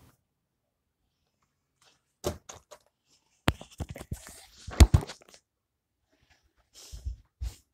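Handling noise from a camera being moved about and set down: a thump about two seconds in, then a dense run of knocks and rustling, loudest around the middle, and a few more thumps near the end.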